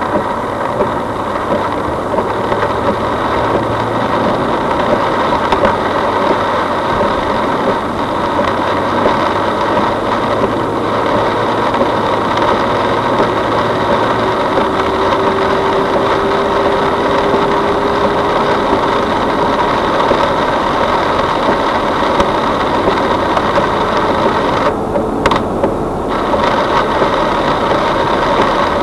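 A car being driven: steady engine and road noise under a dense hiss, with a faint tone that holds for a few seconds in the middle.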